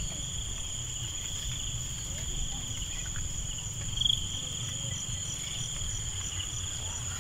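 Steady insect chorus: two continuous high trilling tones, the higher one faintly pulsing, over a low rumble. A short chirp sounds about four seconds in.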